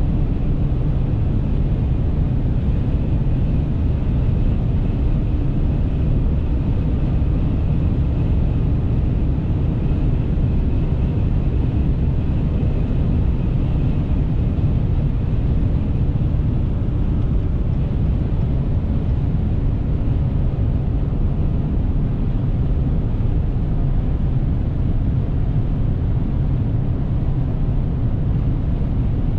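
Steady in-cab drone of a Dodge Ram 1500's 5.7-litre Hemi V8 cruising at autobahn speed, blended with tyre and wind noise.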